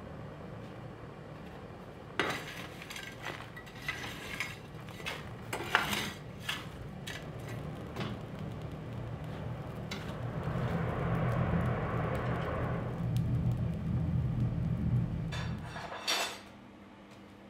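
Metal tool scraping and clinking through the coal of a blacksmith's forge as the fire is lit, over a steady low hum from the forge's air blower. A rush of air through the fire swells for a few seconds, then the sound drops away near the end.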